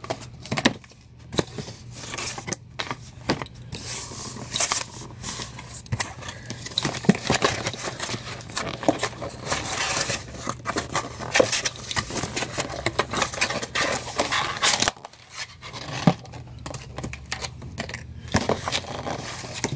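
Printed cardboard comic storage box being folded together by hand: stiff card scraping, creasing and rustling, with frequent clicks and taps as the flaps are bent and tucked in. The handling is busiest in the middle and eases off about fifteen seconds in.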